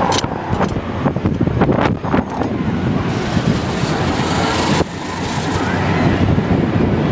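Wind rushing over a phone's microphone as a high spinning fair ride carries the rider around, a steady rumbling hiss that grows brighter for a couple of seconds in the middle. A few sharp knocks come in the first two seconds.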